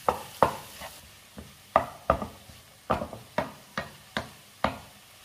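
A wooden spatula stirring chopped onions and fried prawns in a nonstick frying pan, knocking against the pan in an irregular series of sharp taps, two to three a second.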